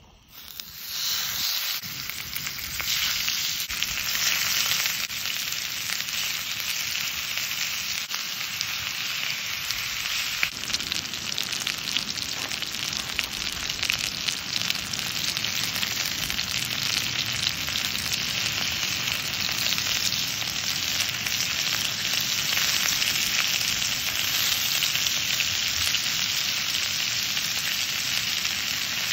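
Chicken thigh pieces sizzling in a hot cast-iron skillet. The sizzle starts about a second in as the meat hits the pan, grows over the first few seconds, then holds steady as the pieces sear and brown.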